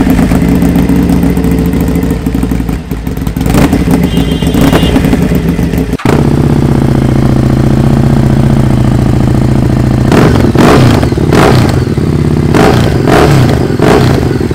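Motorcycle engines running, with a sudden switch to a different engine about six seconds in, then a series of short, sharp throttle blips near the end.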